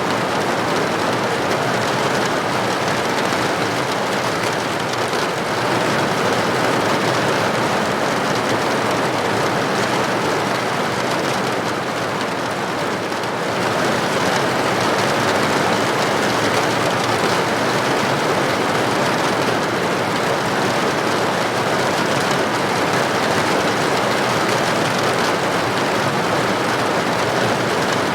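Steady rain, an even hiss without breaks, easing slightly about twelve seconds in.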